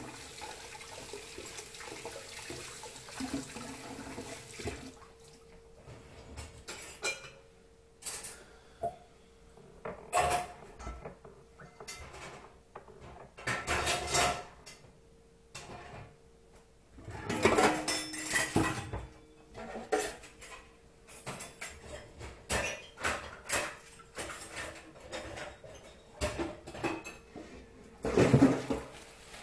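Dishes and cutlery clattering as they are washed in a kitchen sink, with tap water running for the first few seconds, then scattered knocks and clinks. A faint steady hum sits underneath.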